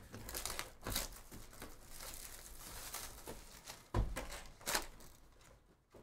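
Cardboard trading-card hobby box being handled and opened: rustling of the box flaps and crinkling of the foil-wrapped packs inside, with a sharp thump about four seconds in as the box is knocked or set down.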